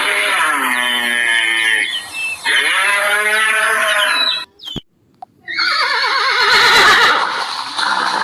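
Three long, drawn-out farm animal calls, each with a wavering pitch, with a short silent break just past the middle.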